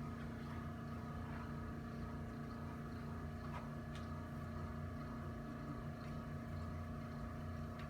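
A steady machine hum with a pulsing low rumble underneath and a few faint clicks.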